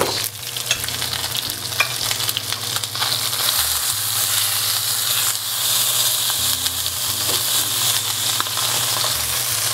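Whole branzino sizzling as it fries in canola oil in a nonstick pan: a steady, high-pitched hiss. The sizzle grows louder about three seconds in, as the fish is flipped and its uncooked side meets the hot oil. A few light clicks come in the first two seconds.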